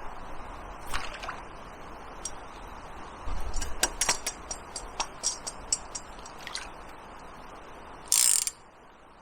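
Fishing tackle and a centrepin reel being handled: irregular sharp clicks and ticks, thickest in the middle, and a brief louder rasp near the end, over a steady hiss of flowing river water.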